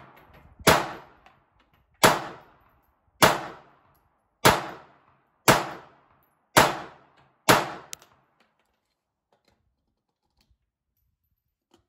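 A Beretta 85BB Cheetah .380 ACP pistol fired seven times at a steady pace of about one shot a second, each shot a sharp report with a short echo. Firing stops about eight seconds in.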